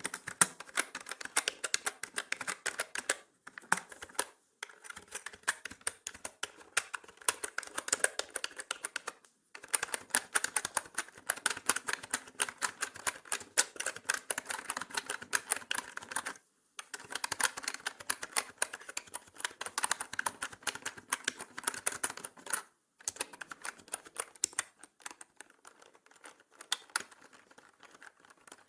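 Fast typing on a mechanical keyboard: dense runs of sharp key clicks broken by a few short pauses, growing sparser near the end. The audio is mixed in 8D, panning around the listener.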